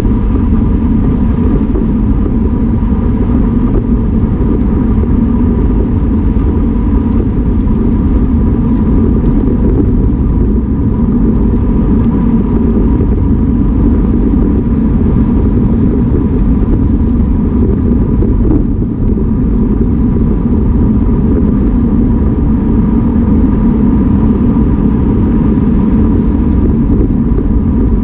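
Wind rush and road rumble on the microphone of a camera riding with a racing bicycle in a fast-moving pack: a loud, steady low rumble with a faint steady whine above it.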